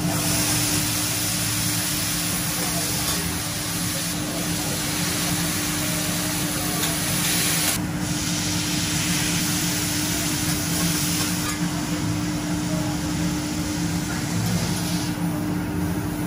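Bean sprouts and vegetables sizzling and steaming on a hot steel teppanyaki griddle as liquid is poured over them from a small metal pot. The hiss is loud for about the first eight seconds, drops off, then fades further after about eleven seconds, over a steady hum.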